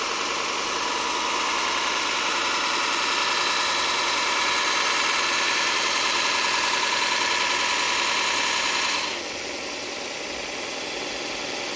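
Power sander running steadily with a hissing grind of abrasive on the workpiece; about nine seconds in the sound drops and thins, while the motor carries on.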